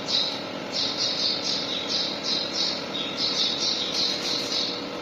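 Small bird chirping over and over, short high calls coming in quick runs of about three a second.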